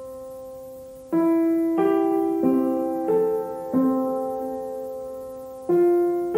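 Background piano music: a soft note, then from about a second in slow chords struck one after another, each left to ring and fade.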